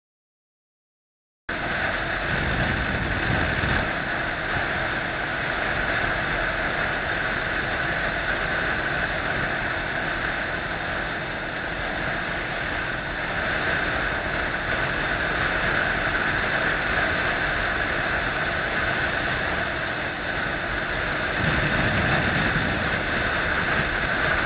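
Steady wind rush and road noise on a helmet camera's microphone while a Kawasaki cruiser motorcycle rides along at speed, with the bike running underneath. It starts abruptly about a second and a half in, after silence.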